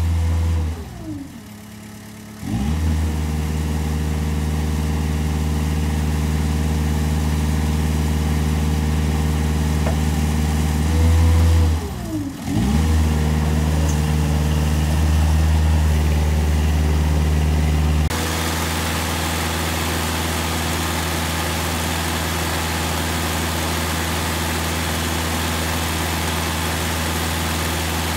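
Haulotte HA12PX boom lift's engine running at raised speed while the boom is worked. Twice it slows down and then revs back up a second or two later. About two-thirds of the way through, the sound switches to a steady, even engine run close to the engine.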